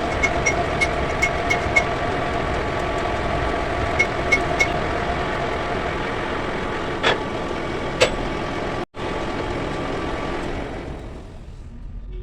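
Machinery running steadily with a hum, with runs of light ticks in the first two seconds and again about four seconds in, and two sharper clicks a second apart. The running dies away near the end.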